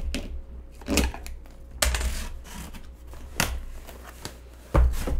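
A cardboard shipping box being handled and opened on a desk: a handful of sharp, irregular knocks with rustling and scraping of cardboard in between, the loudest knock near the end.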